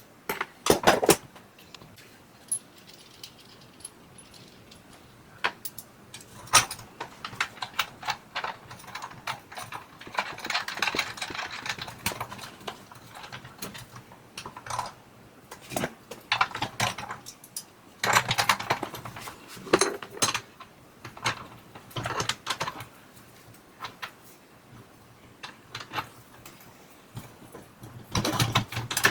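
Metal hand tools and hardware clinking and rattling in irregular bursts, with scattered sharp clicks, as new front drum rollers are fitted and tightened on the dryer.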